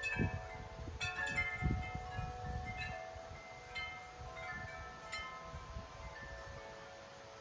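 Wind chimes jangling in strong, gusty wind: a cluster of strikes about a second in, then scattered single notes ringing on as the gusts ease. A low rumble of wind buffets the microphone early on and dies down.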